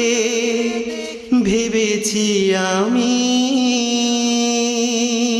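Bengali nasheed vocals: a male voice singing long held notes with vibrato, a new note coming in about a second and a half in and then held as the song's closing note.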